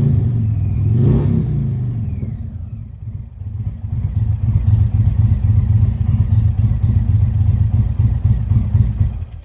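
Indian Roadmaster's V-twin engine running on a freshly flashed DynoJet tune, warming from cold: idling near 1,000 rpm with a brief rev to about 3,500 rpm, then switched off near the end.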